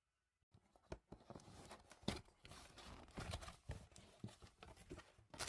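A large cardboard box being handled and opened: scattered taps, scrapes and rustling, busier from about two seconds in.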